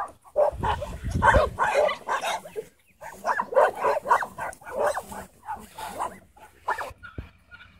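A dog barking excitedly in quick, repeated short barks, about three a second, with a brief pause about three seconds in and fading near the end.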